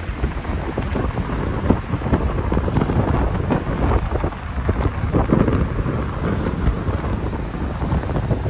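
Gusty wind buffeting the phone's microphone: a heavy, uneven low rumble with crackling throughout.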